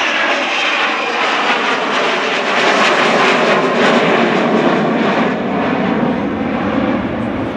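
Avro Vulcan XH558's four Rolls-Royce Olympus turbojets, loud jet noise as the bomber flies its display; about five seconds in the hiss fades from the top and a lower sound remains, as the aircraft moves away.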